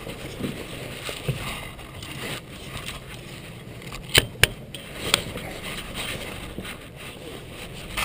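Handling noise from a fishing landing net and clothing rubbing and scraping against the camera, with two sharp knocks close together about four seconds in and a third a second later.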